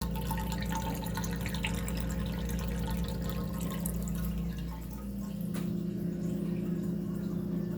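Water draining down a sink's drain hole, gurgling and dripping, over a steady low hum. The noise comes from the drain hole itself as the sink empties.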